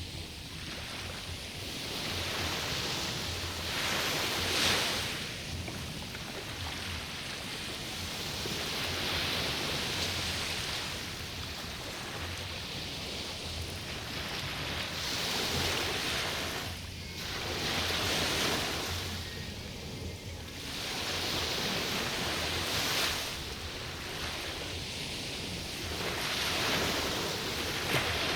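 Sea waves breaking and washing ashore, swelling and fading every few seconds.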